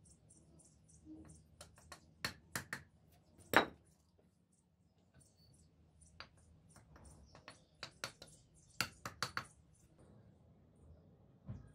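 Bricks being set and tapped into place on a brick wall: about a dozen sharp knocks and clinks at irregular intervals, the loudest about three and a half seconds in and a quick cluster near the end.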